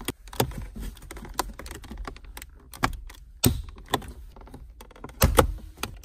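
Plastic center console trim panel being pried up with a small pry tool and fingers: irregular clicks and creaks from the plastic and its retaining clips, with a few louder clicks around the middle and near the end.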